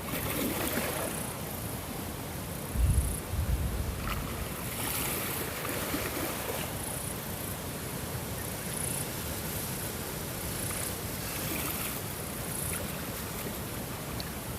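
Waves washing with wind, a steady rush of water noise, with a brief low buffet of wind on the microphone about three seconds in.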